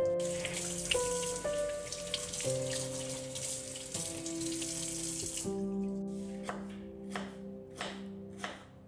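Water running from a kitchen tap into a sink for about five and a half seconds, then stopping, followed by a run of short sharp sounds about twice a second. Soft instrumental background music plays throughout.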